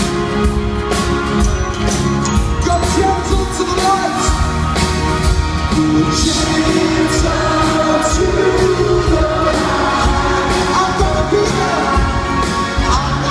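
A live band with guitar, double bass and drums playing a slow song, with a singer's voice carrying the melody, heard from the audience in an arena.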